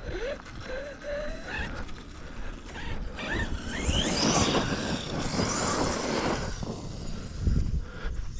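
Brushless electric motor of an RC car whining up in pitch as it accelerates: a short rising whine near the start, then a louder, steeply climbing whine from about three seconds in, over a rush of tyre and ground noise.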